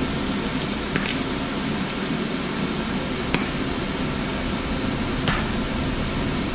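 Steady rush of a kitchen range hood fan over food frying in the pan, with three sharp clinks of glassware spread through.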